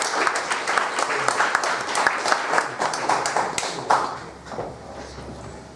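A small audience applauding, the clapping thinning and dying away about four seconds in.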